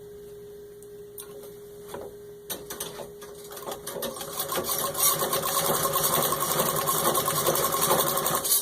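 1921 Singer 66-1 treadle sewing machine stitching through six layers of denim. A few separate clicks pick up into rapid, even stitching clatter that runs at full speed from about halfway in, then stops abruptly near the end.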